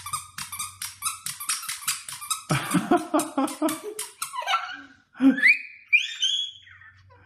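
A dog sniffing and panting quickly, about five short noisy breaths a second, then some lower vocal sounds and a few short, high, rising squeaks near the end.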